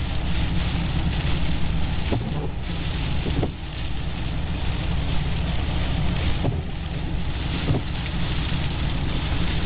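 Steady noise of heavy storm surf and wind on the microphone.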